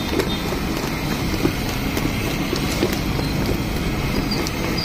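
A hand stirring thick gram-flour batter in a steel bowl, giving soft wet slaps every half second or so, over a steady roar of street traffic.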